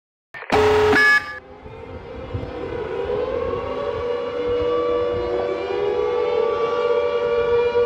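Civil defense air-raid siren sounding an attack warning: a loud, short harsh blast about half a second in, then the siren's wail rising in pitch over several seconds and settling into a steady tone that grows louder.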